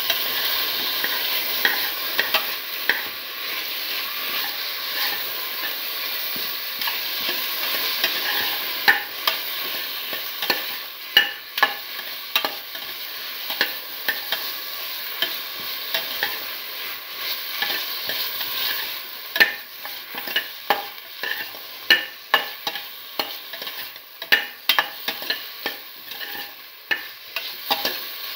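Beef pieces sizzling in a pan of hot ghee and spiced onion-tomato mixture while a spoon stirs them, knocking and scraping against the pan. The sizzle is strongest at first and eases, and the knocks of the spoon come more often after about ten seconds.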